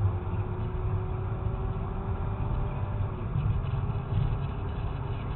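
Steady low engine and road rumble of a moving car, heard from inside the cabin, with a faint whine in the first half.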